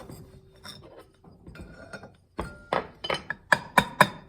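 Steel parts of a 700R4 automatic transmission clinking together as a piece is worked down into place in the clutch assembly. A run of sharp metallic clinks starts about halfway through, with the loudest few close together near the end.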